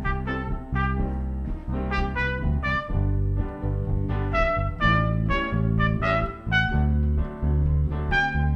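Music: a melody of short notes, two or three a second, over a steady bass line.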